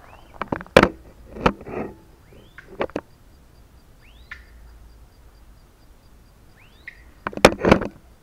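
Chachalacas giving harsh calls in thick brush, mixed with sharp snaps and rustles of footsteps in dry undergrowth. Short thin whistled notes recur every couple of seconds, and a loud cluster of snaps and rustling comes near the end.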